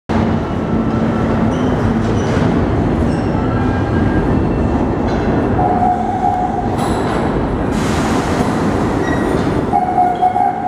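Vintage subway train rumbling into an underground station, its approach sounding as a loud, steady rumble of wheels on track. A short high tone sounds twice, near the middle and near the end, and a high hiss comes in about eight seconds in.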